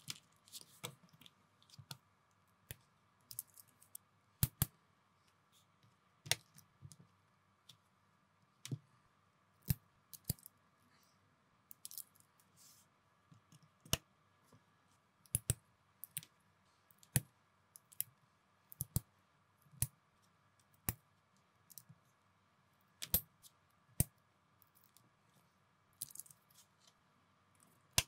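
Plastic building bricks clicking as pieces are snapped and pressed together by hand: sharp, irregular clicks about once a second, some in quick pairs, over a faint steady hum.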